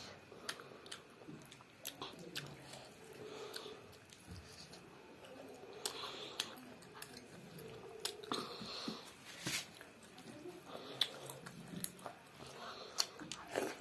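A child chewing rice and meat curry with mouth sounds, wet lip smacks and sharp clicks scattered irregularly throughout.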